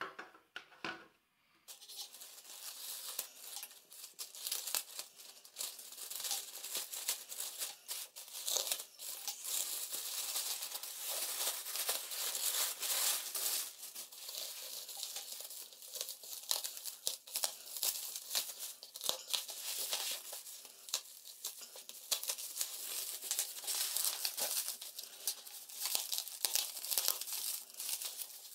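Bubble wrap crinkling and crackling as hands handle a wrapped parcel: a dense, continuous rustle full of small sharp crackles that starts about two seconds in, after a few brief clicks.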